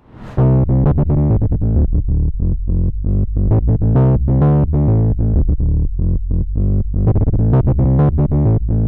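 Moog Subsequent 25 analog synthesizer playing a sequenced pattern on its "AG Rez 5th sync" patch: a fast, even run of short, bright pitched notes, several a second, starting about a third of a second in.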